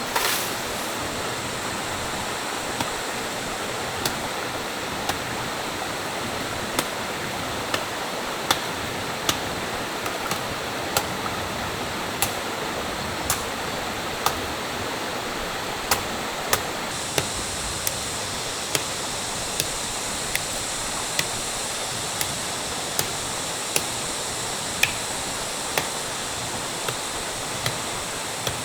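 Steady rushing of a stream, with sharp knocks about once a second.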